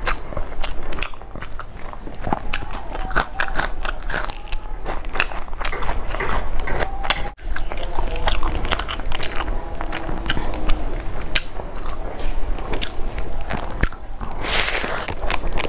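Close-miked chewing and crunching of fried rice and fish curry eaten by hand: a dense, irregular run of mouth clicks and crunches, with one sharper, louder burst near the end.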